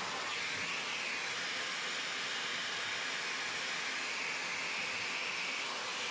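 Wet-and-dry shop vacuum running steadily as its hose nozzle is worked over old marine carpet: a steady rush of air, with a high airy whistle that sets in just after the start and fades shortly before the end.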